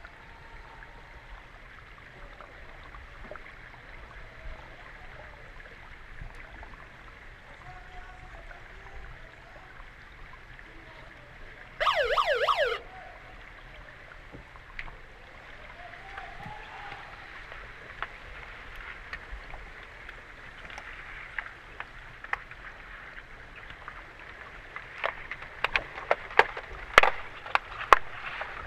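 Underwater recording of an underwater hockey game: a steady underwater hiss, broken about twelve seconds in by the referee's underwater buzzer, a short, loud warbling siren tone that signals a halt in play. Near the end, a run of sharp clicks and knocks from sticks and puck striking in the scrum.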